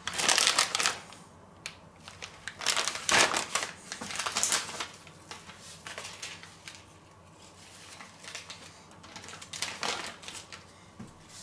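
Plastic bag of shredded cheese crinkling and rustling as it is handled and set down, in a few short bursts, loudest in the first half.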